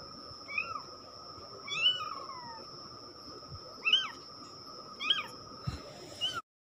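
Very young kitten meowing: about five short mews roughly a second apart, each rising then falling in pitch.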